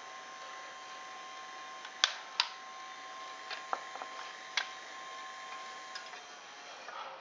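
Small DC gear motor driving a pizza-oven turntable, running with a steady whine that cuts off about six seconds in. Two sharp clicks come about two seconds in, with a few fainter ones later.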